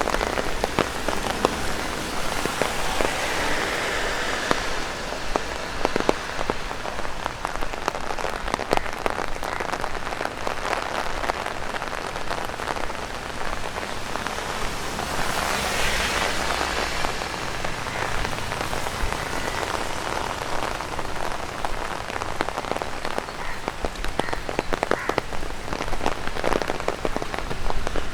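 Rain falling on an umbrella, with many separate drops tapping on the canopy. The hiss swells briefly about halfway through.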